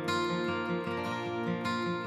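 Background music led by acoustic guitar, plucked and strummed in a steady, even rhythm.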